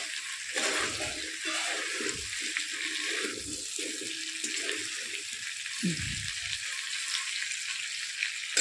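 Chicken pieces sizzling in a steel kadai as the last of their cooking water boils off, with a metal spatula stirring and scraping the pan now and then.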